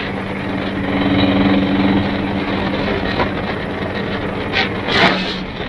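Classic 4x4 fire truck driving on a gravel road, its engine running with a steady drone under tyre and wind noise.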